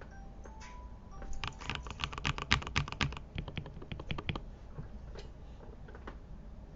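Fast typing on a mechanical keyboard with lubed switches: a rapid run of keystrokes lasting about three seconds, then a few scattered single keystrokes.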